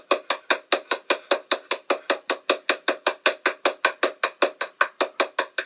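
Rapid, even knocking, about seven or eight sharp strikes a second, kept up without a break.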